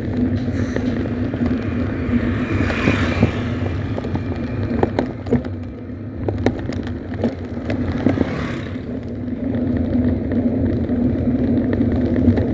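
Motorcycle engine running steadily while riding on a road, with scattered small rattles and clicks and two brief swells of rushing noise.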